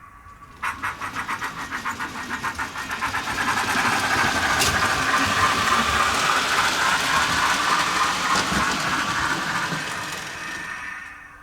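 Steam-locomotive chuffing from a Soundtraxx Econami sound decoder in an OO-gauge Hornby 9F model. The beats start suddenly, quicken until they run together into a steady exhaust sound, then fade away near the end.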